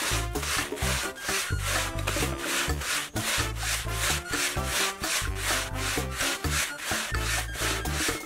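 Ice being shaved by hand, a block pushed back and forth across a blade in quick, even scraping strokes, about four a second, as shaved ice piles up. Background music plays underneath.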